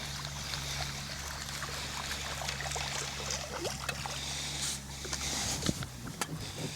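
Water splashing and dripping as a hooked speckled trout is brought to the side of a kayak and thrashes at the surface, with a sharper splash about six seconds in. A steady low hum runs underneath and stops about five and a half seconds in.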